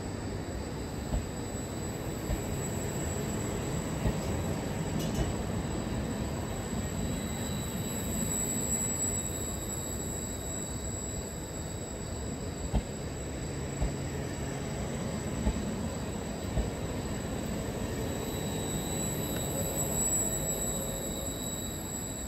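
Trenord double-deck passenger train rolling past close by, with a steady rumble of wheels on rail and irregular knocks from the rail joints. A thin, high wheel squeal swells and fades twice.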